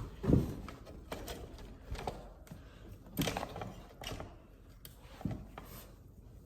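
Scattered knocks and clunks of metal parts being handled while a dirt bike's front wheel is lined up in the fork, about six in all. The loudest comes about a third of a second in.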